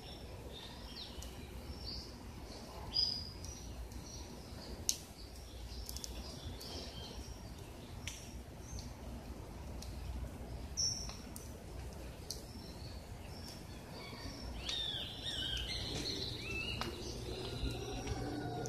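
Birds chirping in short, scattered calls over a low, steady background rumble, with a few sharp clicks. The chirping grows busier near the end.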